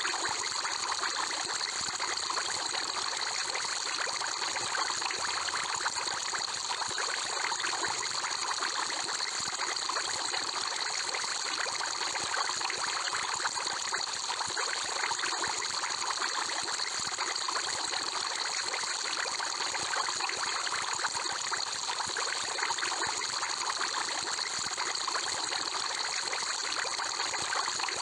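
Aquarium water ambience: continuous bubbling and trickling water with a fine crackle of bursting bubbles, steady and unchanging throughout.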